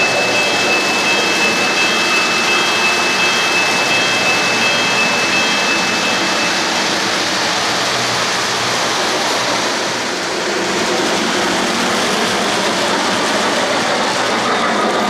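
O-gauge three-rail model trains running on the track, a steady, even rumble of wheels and motors. A thin high steady tone sounds along with it and stops about six and a half seconds in.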